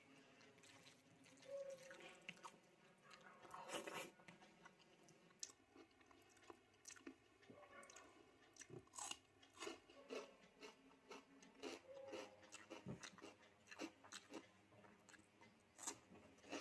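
A person chewing food close to the microphone, faint, with many small irregular wet mouth clicks and occasional soft crunches.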